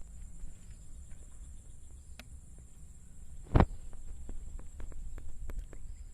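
Insects shrilling steadily in a high band, with one dull thump about three and a half seconds in, followed by scattered light clicks.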